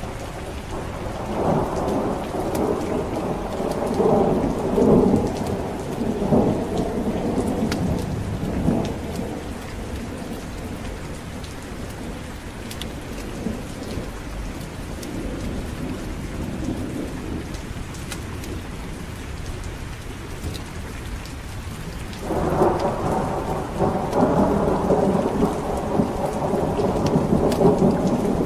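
Steady heavy rain with thunder rolling twice: a long rumble building near the start and fading away, then another breaking in abruptly about three-quarters of the way through and continuing.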